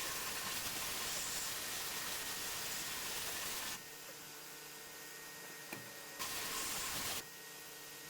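Sandblasting gun firing in a Harbor Freight blast cabinet, a loud even hiss in bursts: one long blast that stops about four seconds in, then a shorter blast of about a second. A quieter steady hiss runs between the blasts.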